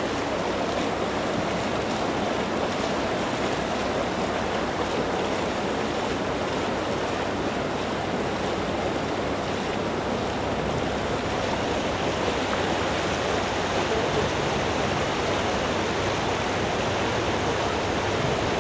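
A steady, unbroken rush of fast-flowing water, even in level throughout.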